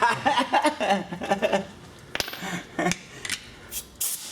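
A man laughing for about a second and a half, then a handful of sharp, separate clicks and knocks from work on the truck's rear hub.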